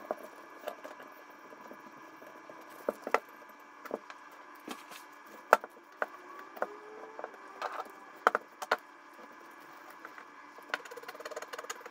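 Scattered light clicks and taps of a disassembled pistol's slide, barrel and frame being picked up, turned and set down on a cloth-covered table while solvent is dabbed on with a Q-tip, over a faint steady hum.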